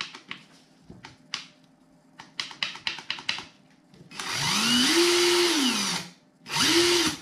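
Avid Power 20V cordless impact wrench's motor run with nothing on the drive. It whirs up in pitch, holds for about two seconds and winds down, then gives a second short burst near the end. Before that come a few light clicks as the square drive is worked by hand, rattling in its play (backlash).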